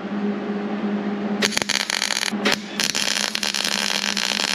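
MIG welder arc crackling as it welds a steel patch panel. It starts with a burst about a second and a half in, pauses briefly, then runs steadily to near the end. A steady hum sits underneath.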